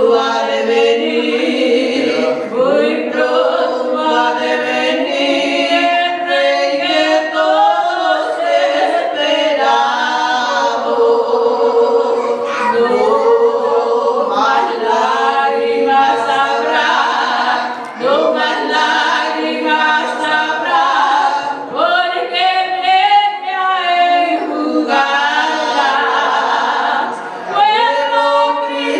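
Two women singing a duet a cappella, in sustained phrases with brief breaks between them, about eighteen and twenty-seven seconds in.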